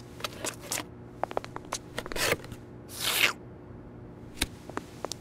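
Cartoon foley of a small cardboard box of bandages being grabbed from a shelf and handled: a string of small taps and clicks with three short rustling swishes and a sharper click near the end.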